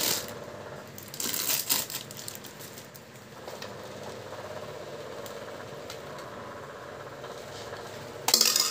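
Clear plastic wrap crinkling and rustling as it is pulled off a dome CCTV camera by hand. It comes in bursts, one about a second in and the loudest near the end, with quieter handling noise between.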